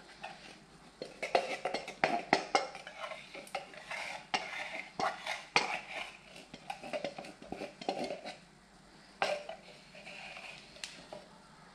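Spoon scraping and clinking against a bowl as mascarpone cream is mixed by hand, with many sharp knocks through the first seven seconds and only a few scattered ones after.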